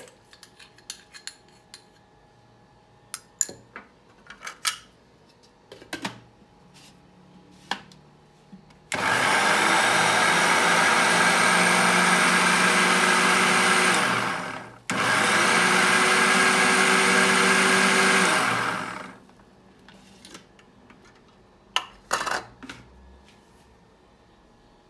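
Countertop electric blender running in two bursts, about six and then four seconds long with a brief stop between, blending milk, vanilla ice cream, Oreo biscuits and sugar into a shake. Its motor tone sinks as each burst winds down. Scattered clicks and knocks come before and after the blending.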